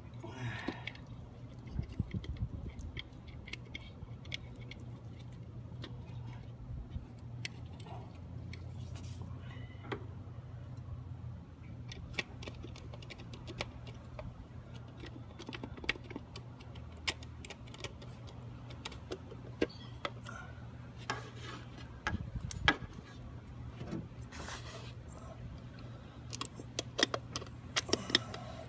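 Scattered light clicks and metallic rattles of hands and tools at work on an engine, over a steady low hum.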